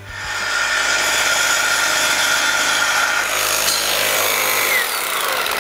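Milwaukee Super Sawzall cordless reciprocating saw with a Diablo Steel Demon carbide-tooth thick-metal blade cutting through a 3/8-inch steel I-beam. It makes a steady, loud rasping with a high ringing tone. The sound builds in over the first half second and dips slightly in pitch near the end.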